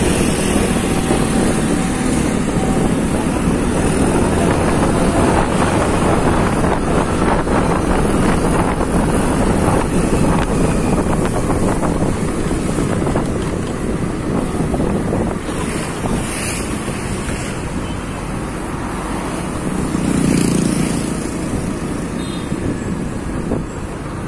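Wind rushing over the microphone together with engine and road noise while riding on a street behind a bus, steady throughout with a brief louder swell about twenty seconds in.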